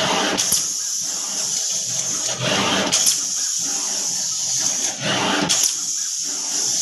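SMT pick-and-place machine running: a steady air hiss with a whooshing surge and a click about every two and a half seconds as it cycles.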